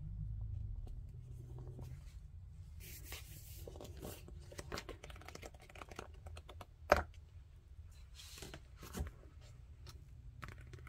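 Paper pages and glossy sticker sheets of a softcover activity book being flipped, rustling and crinkling, with a sharp slap about two-thirds of the way through and a softer one a couple of seconds later as the book is leafed to its end and closed.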